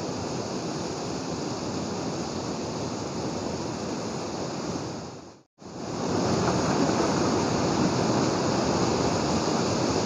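Steady rushing of water falling at a waterfall. The sound drops out briefly a little past halfway and comes back louder.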